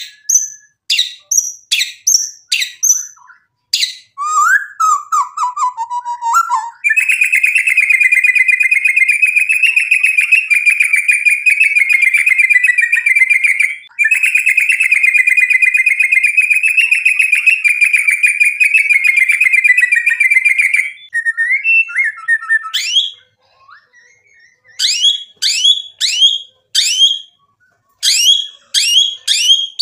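White-rumped shama singing. It opens with a run of sharp whistled notes that sweep downward, and some lower warbling. From about seven seconds in comes a long, fast trill lasting some fourteen seconds, broken briefly midway, and then near the end another run of quick downward-sweeping whistles.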